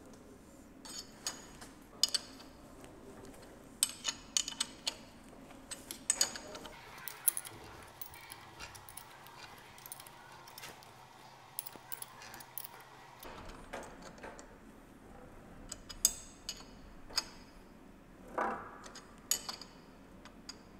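Steel spanner clinking and clicking against the clamp bolts of a Bridgeport-type milling head as the bolts are worked, in irregular clusters of sharp metallic ticks with a short ring.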